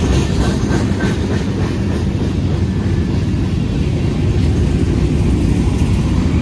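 Freight train's cars rolling past at trackside, tank cars giving way to gondolas and a covered hopper: a loud, steady rumble of steel wheels on rail.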